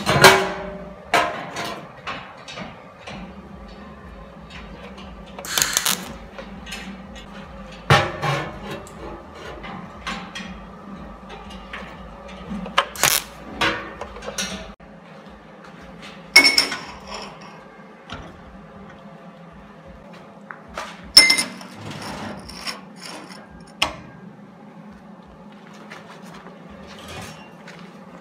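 Electric arc welding in short tacks: about eight brief crackling bursts of the arc fixing steel square-tube legs to a steel plate, separated by pauses, over a steady low hum.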